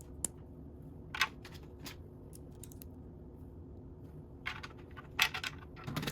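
Small plastic Lego pieces clicking and clattering as they are handled and placed: scattered sharp clicks, busiest in a cluster near the end, over a faint steady hum.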